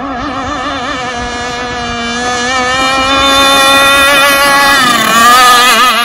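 Enforcer Stingray gas RC hydroplane's two-stroke engine running hard on a high-speed pass: a high, wavering whine that grows louder, then drops in pitch about five seconds in as the boat passes close.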